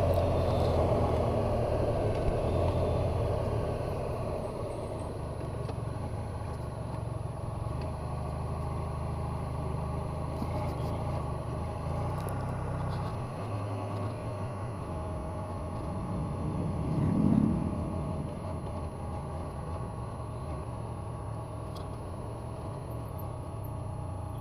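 Motorcycle engines running at idle, with a steady low hum that drops away a little past halfway. A few seconds later another motorcycle's engine rises and falls as it goes by.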